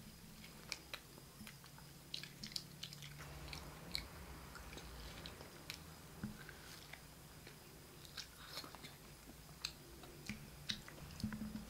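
Children biting and chewing steam-roasted beef chops off the bone: irregular short, sharp smacks and clicks of eating, over a faint steady low hum.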